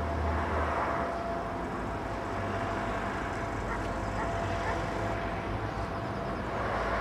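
Steady low road-and-engine rumble of a car driving, heard inside the moving car, with a faint steady whine running through it.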